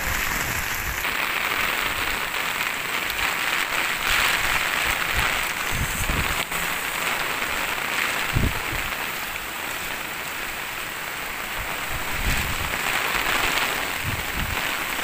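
Heavy rain pouring down steadily on pavement and roofs, with a few brief low buffets of wind on the microphone.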